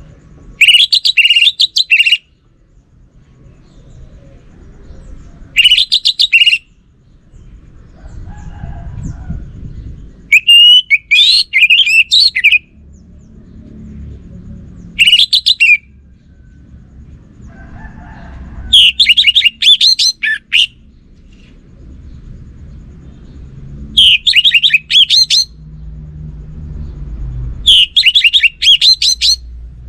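Orange-headed thrush singing: seven short, loud phrases of quick, high, whistled notes, each one to two seconds long, with pauses of a few seconds between them. A faint low rumble sits beneath.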